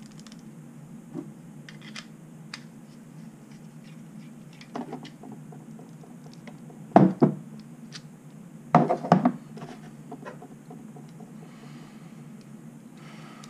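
Small metal clicks and taps from the pins and core of an ABUS 72/40 padlock being handled as it is taken apart, with two louder clusters of knocks about halfway through and again about two seconds later, over a steady low hum.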